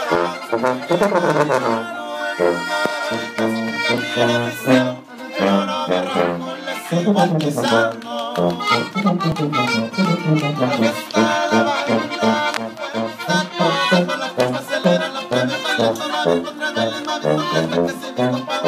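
Live trio of accordion, sousaphone and acoustic guitar playing an instrumental passage. The accordion carries the melody over a bass line of stepping notes from the sousaphone.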